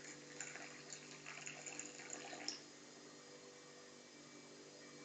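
Faint splashing of water for about the first two and a half seconds, then only a steady low hum.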